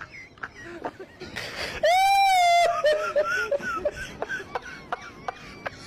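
A high-pitched voice-like cry, loud and held for under a second about two seconds in. Short, rising and falling squeaky calls and clicks follow.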